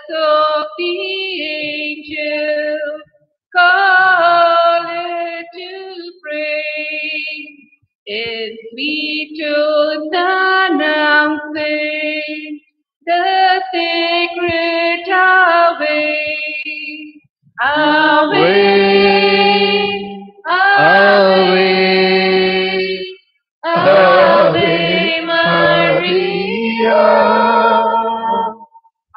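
A devotional hymn sung in phrases of a few seconds, with short breaks between them and no instrument heard. The melody sits higher at first and moves lower and fuller about two-thirds of the way through.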